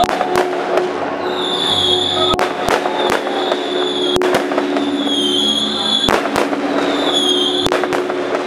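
Fireworks display: sharp bangs at irregular intervals, several close together, with a high whistling tone that returns every couple of seconds.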